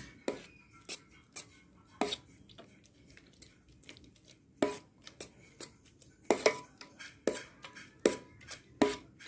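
Steel spoon knocking and scraping against a steel bowl while gathering freshly churned butter in buttermilk. The clinks are irregular, about fifteen in all, several with a short metallic ring.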